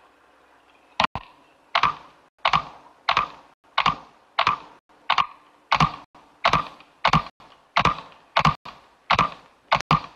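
A steady series of sharp knocks, evenly spaced at about three every two seconds, starting about a second in, each with a short ringing decay.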